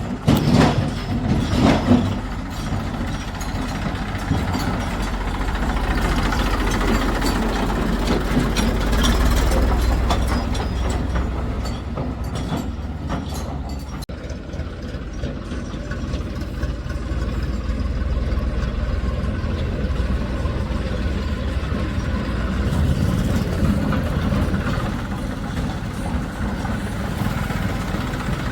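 Heavy diesel engine of a farm tractor or backhoe loader running steadily, its level swelling and easing slowly, with two loud knocks in the first two seconds.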